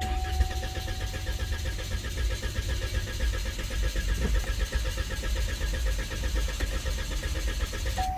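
Starter cranking the 2.0-litre turbo four-cylinder of a 2013 Cadillac ATS, an even, rapid rhythm that keeps going without the engine catching. The fuel rail is not building pressure, so it won't start.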